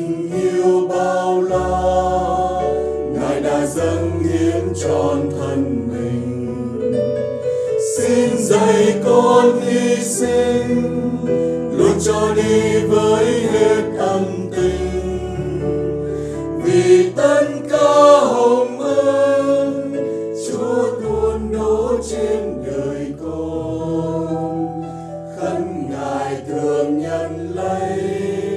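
Choir singing a religious song over an instrumental accompaniment with held bass notes.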